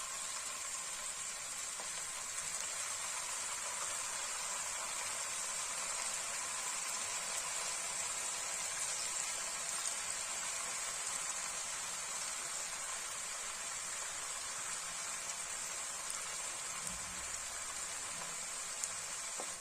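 Potato fries deep-frying in hot oil, a steady sizzle with a few small pops.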